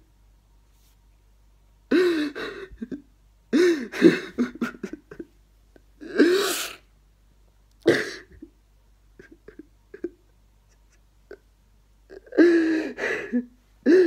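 A man sobbing: about five short bursts of crying with gasping breaths, separated by silent pauses.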